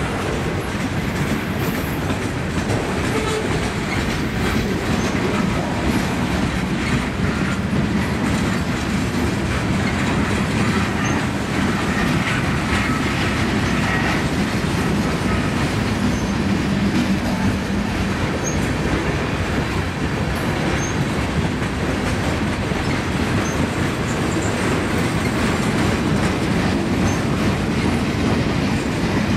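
Freight train of boxcars, tank cars and lumber-loaded flatcars rolling past close by: a steady rumble and rush of steel wheels on the rails with clickety-clack over the rail joints.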